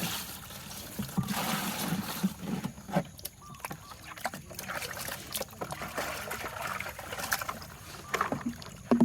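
Water splashing and sloshing with scattered light knocks, as toy vehicles are washed in water.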